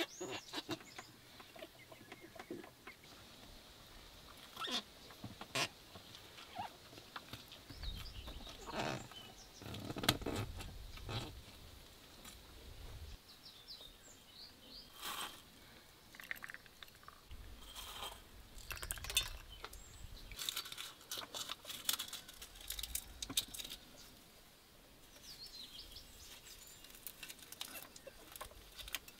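Scattered light taps and clicks of glass jars and peppers being handled, with a few faint bird chirps.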